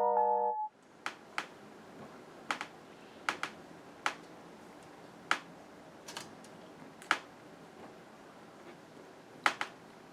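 Background music stops about half a second in. Then come sharp, short clicks and taps from stationery being handled while a journal is decorated, about a dozen at irregular intervals, several in quick pairs, over a faint hiss.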